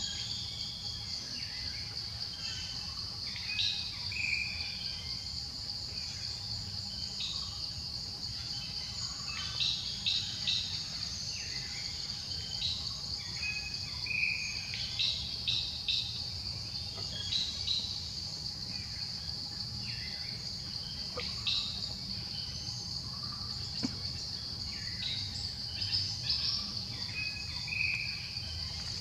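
Steady high-pitched drone of forest insects, with short chirps coming and going throughout and a low rumble underneath.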